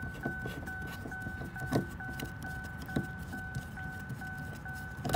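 A 2008 Chevrolet Equinox's warning chime sounds throughout as a fast, evenly repeating high-pitched beep. Now and then there are light clicks and taps from a screwdriver working a door-panel screw.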